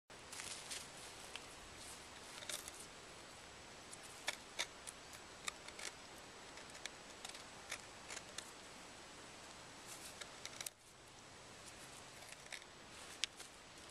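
Irregular sharp clicks and scratches as hands and a small pointed tool pick and scrape at the bark and crumbly wood of a silver birch root, over a faint steady hiss.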